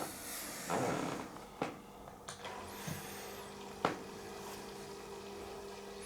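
Small electric fountain pump humming steadily just after being switched on, with a few sharp handling knocks.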